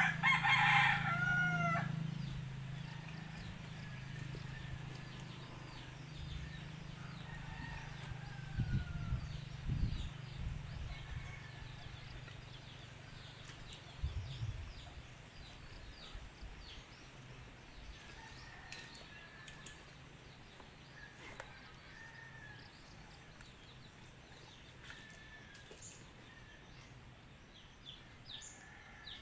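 A rooster crows once, loud, with a falling pitch, then fainter crows and small bird chirps come and go. A low steady hum runs under it and fades out about halfway through, with a few dull thumps about nine and fourteen seconds in.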